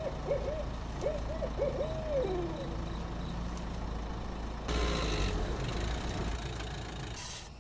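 Low, steady rumble of a car running at night, with an owl hooting several times in the first three seconds, the last hoot longer and falling. About five seconds in, the car noise grows louder for a while.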